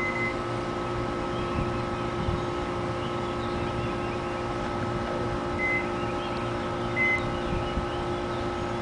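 Microwave oven running with a steady hum, with a few short high beeps at the start and later on; no arcing can be heard.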